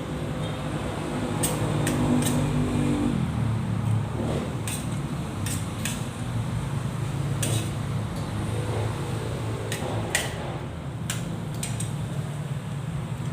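Spoon and fork clinking now and then against a plate during a meal, in short irregular clicks, over a steady low fan hum.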